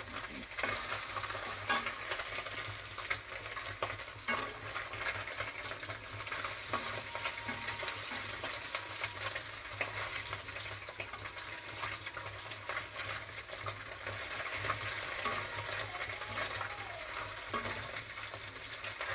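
Small mourala fish (mola carplets) sizzling as they fry in hot oil in a metal kadai. A metal spatula scrapes and knocks against the pan now and then as the fish are turned.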